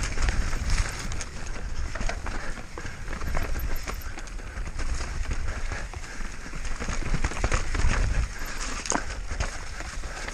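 Mountain bike descending a rough trail at speed: tyres on dirt and rocks with constant rattling knocks from the bike, over a heavy rumble of wind on the microphone.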